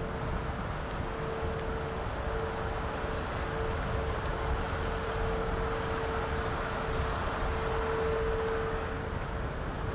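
Steady indoor room noise: a low rumble and hiss with a constant mid-pitched hum running through it.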